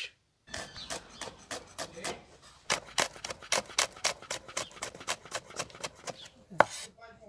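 Chef's knife slicing small red pearl onions on a wooden chopping board: a quick, even run of knife taps against the board, about five a second, with one sharper knock near the end.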